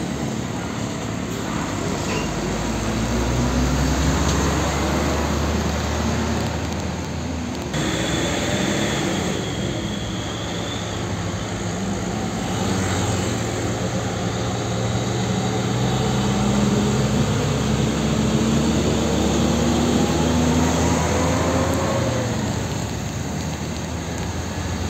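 Heavy diesel truck engines running as the trucks pull past: first a Hino tractor unit hauling a container. After a cut about eight seconds in comes an Isuzu cargo truck, whose engine pitch climbs late on as it pulls away.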